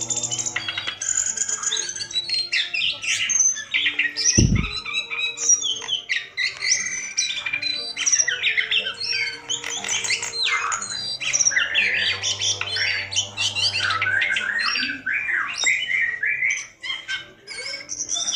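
Caged jongkangan (cingcoang) in full, non-stop song: a rapid, varied stream of high chirps, whistles and trills, the kind of 'gacor' song used as a lure to get reluctant jongkangan singing. A single low thump comes about four and a half seconds in.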